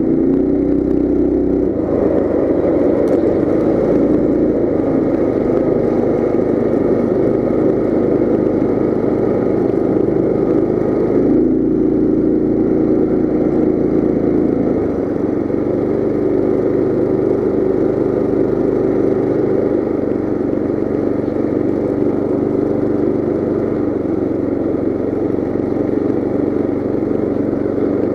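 Coleman CT200U mini bike's small single-cylinder engine running steadily under way. Its pitch shifts a few times as the throttle changes, about two seconds in and again around the middle.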